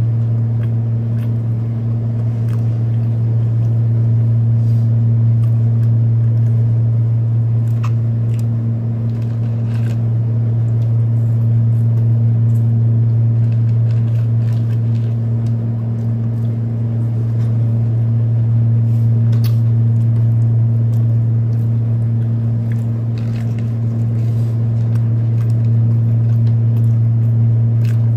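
Steady, loud low electrical hum with a fainter tone an octave above, unchanging throughout. Faint chewing and mouth clicks from someone eating a burger sit over it.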